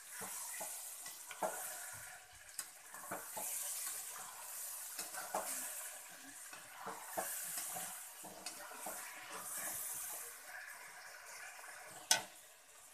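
Steel spatula stirring and scraping chicken with onions and ground masala paste around a metal kadhai, the masala sizzling as it fries. The scrapes come irregularly over a steady hiss, with one sharp clink near the end.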